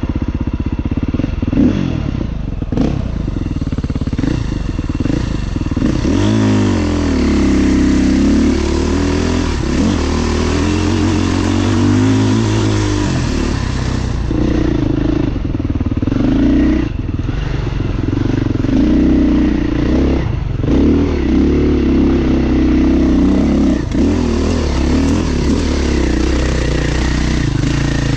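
Beta dirt bike engine under way on a trail ride, its note rising and falling with the throttle, with a few brief drops in between.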